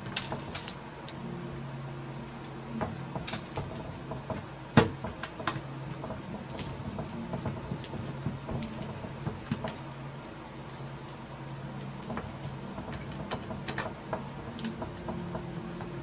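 Screwdriver turning screws into a Sapphire Pulse RX 580 graphics card during reassembly: irregular small metal clicks and ticks, with one sharper click about five seconds in, over a steady low hum.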